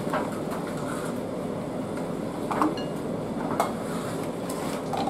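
Wooden spoon stirring cake mixture in a mixing bowl to work out the lumps, with a few short knocks against the bowl, over a steady rumbling background noise.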